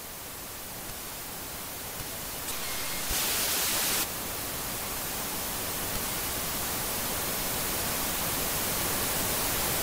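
Steady static hiss that slowly grows louder, with a brighter, louder burst of hiss about three seconds in, lasting about a second.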